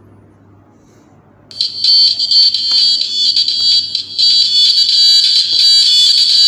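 Small loudspeaker driven by a single TIP41C transistor amplifier, playing music from an MP3 player. The music cuts in suddenly about a second and a half in, loud and thin, nearly all high-pitched with little bass. Before that there is only a faint low hum.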